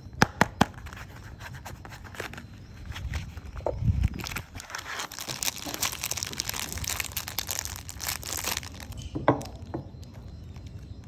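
Soap packaging being torn open and crinkled: a few sharp clicks in the first second, then several seconds of dense crinkling and tearing.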